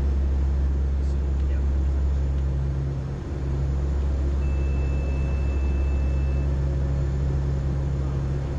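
Four-engine turboprop aircraft heard from inside the cockpit: a steady, loud, low drone of engines and propellers. A thin, high, steady tone sounds for about two seconds in the middle.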